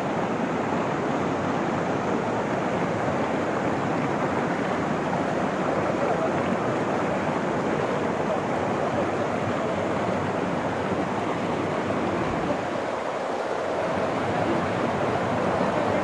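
Mountain stream rushing over boulders and small cascades: a steady, even rush of water close to the microphone.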